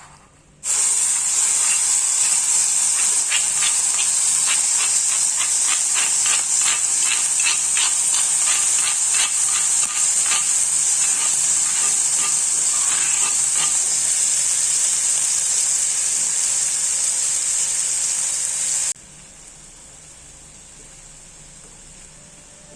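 Sambal frying in hot oil: a loud, steady sizzle that starts suddenly, with a run of quick crackling pops through the middle, then cuts off abruptly near the end.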